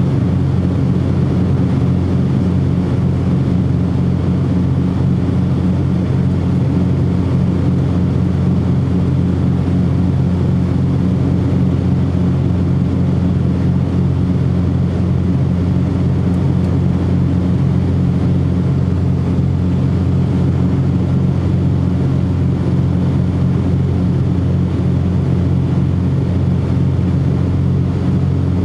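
Cessna 404 Titan's twin piston engines and propellers droning steadily, with no change in pitch or level.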